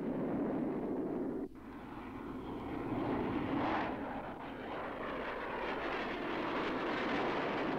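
Jet engine noise of the Ultra Hawk 1 aircraft in flight, as a steady rushing sound effect. It drops off abruptly about a second and a half in, then swells again.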